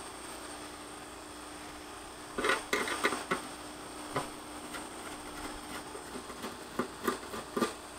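Short clusters of clicks and light knocks from a screwdriver and the plastic housing of an outdoor LTE radio unit being handled while it is taken apart. The clicks come in a few bursts over the second half, over a faint steady hum.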